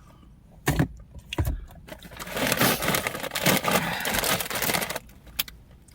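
Crinkly chip bag being handled and turned over, with a dense crackling rustle through the middle and a couple of light knocks before it.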